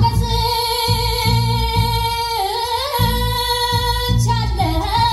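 Klezmer-band music: a high melody line held in long, wavering notes that dip in pitch twice, over a pulsing bass line.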